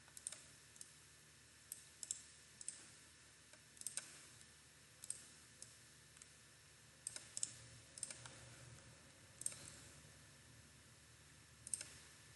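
Computer mouse clicking: sharp single clicks at irregular intervals, some in quick pairs, over a faint steady hiss.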